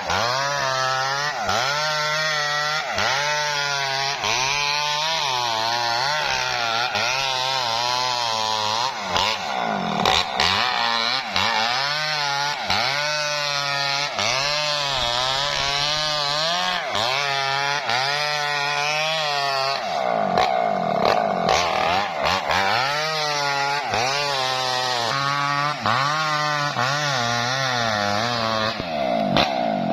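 Small Maestro chainsaw ripping lengthwise through a coconut-palm trunk. The engine pitch dips and recovers about once a second as the chain bites into the wood. Around twenty seconds in it briefly runs at a steady higher pitch before cutting again.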